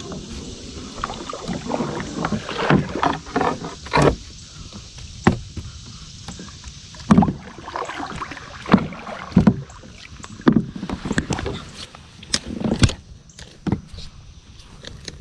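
Irregular knocks and thumps on a plastic sit-on-top fishing kayak as gear is handled and bumped against the hull, about a dozen sharp hits at uneven intervals.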